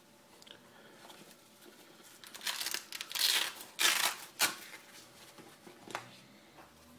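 Crinkling and rustling from material being handled, in several bursts from about two and a half to four and a half seconds in, followed by a single short click a little before the end.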